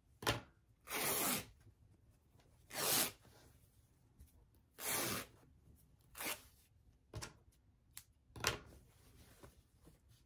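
Checked fabric being torn by hand into a long strip: three long rips about two seconds apart, then several shorter, sharper sounds.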